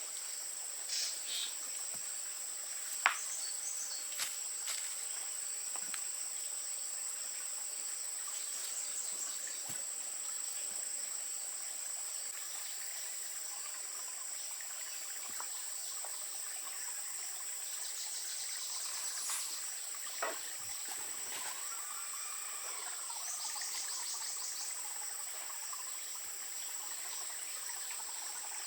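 Insects trilling in one steady, high-pitched drone, with a few sharp clicks and two short bursts of rapid pulsed chirping.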